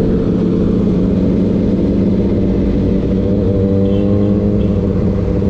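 Sport motorcycle engine running at steady cruising revs, heard from the rider's seat, its pitch rising slightly about three and a half seconds in.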